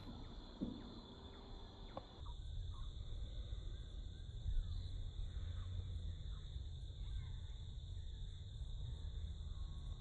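Insects buzzing steadily in a high, constant drone, with faint scattered chirps and a low rumble underneath.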